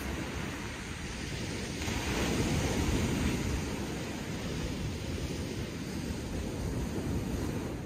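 Waves breaking and washing up a shingle beach, with wind rumbling on the microphone. The surf swells about two seconds in and again near the end.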